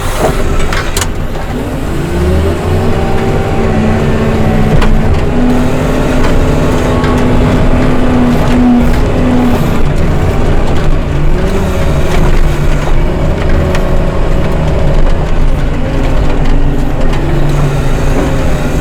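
Diesel engine of a heavy snow-removal machine running under load, its revs rising and falling.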